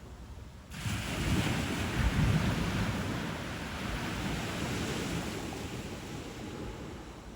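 Ocean wave breaking on a shore: a sudden rush of surf about a second in, loudest a moment later, then slowly washing out, with wind rumbling on the microphone.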